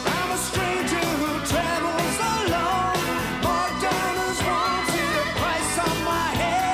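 Pop-rock theme song: a singer over a band with a steady drum beat.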